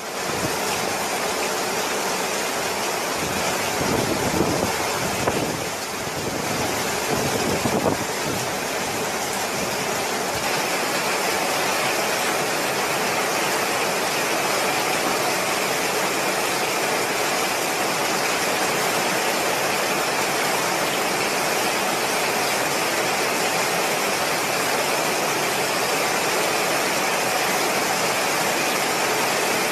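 Hurricane wind and heavy, wind-driven rain making a steady rushing noise, with gusts buffeting the microphone between about 3 and 8 seconds in.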